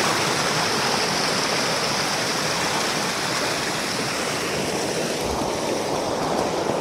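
A mountain creek rushing white over rocks and fallen logs in a small cascade: a steady, even rush of whitewater that grows a little fainter in the second half.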